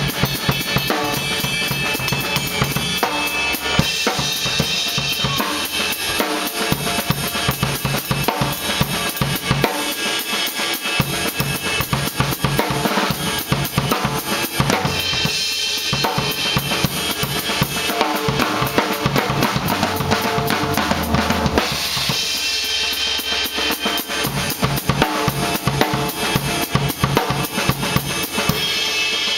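Drum solo on a drum kit: fast, unbroken strokes on snare, toms and bass drum, with cymbal crashes swelling up several times.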